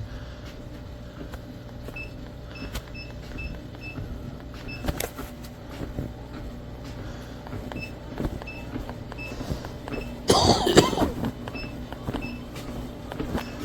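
Walking-pad treadmill running with a steady low motor hum and a short high chirp repeating about three times a second, in two stretches. About ten seconds in there is a loud rustle and clatter of handling.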